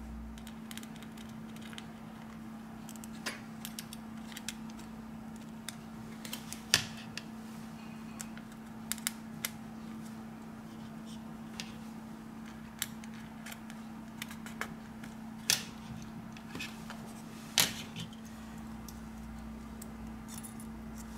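Small sharp clicks and taps of tools and parts being handled while a Samsung Galaxy Note 4 smartphone is taken apart. They come irregularly, with the loudest about a third of the way in and twice near the end, over a steady low hum.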